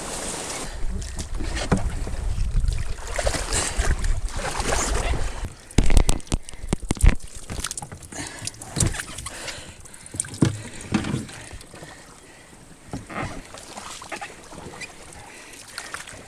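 Canoe being pushed and poled through a shallow, weedy bog: the hull rustling and scraping through dense plants and mud, with a cluster of sharp knocks about six seconds in, then quieter scattered splashes and knocks.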